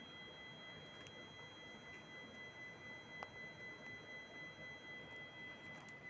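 Faint room hiss with a steady high-pitched whine made of several thin tones, and one light click about three seconds in.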